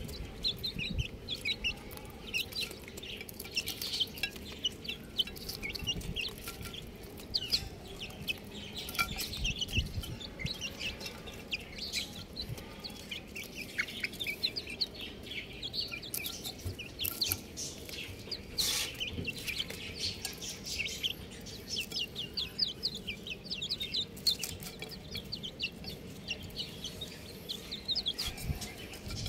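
A group of young chicks peeping without pause: many short, high chirps overlapping, with a few faint knocks here and there.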